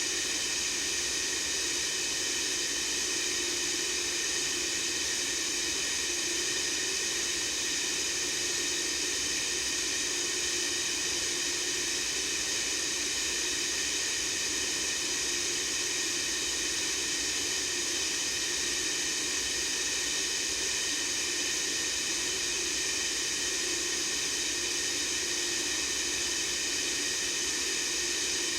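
White-noise sound effect: a steady, unbroken hiss, brightest in the high treble, that does not change.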